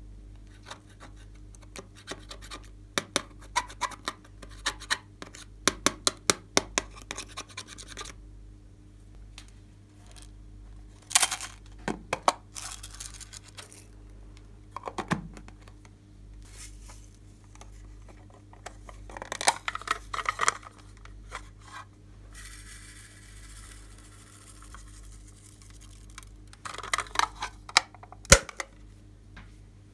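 Small metal tool scraping pressed eyeshadow out of a makeup palette in quick scratchy strokes, several a second, for the first several seconds. Scattered handling noises follow, with a steady hiss partway through and a sharp click near the end.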